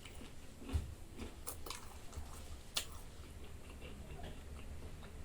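A person chewing a mouthful of dal bhat close to the microphone, with a few short sharp mouth clicks, the sharpest just under three seconds in. A low steady hum lies underneath.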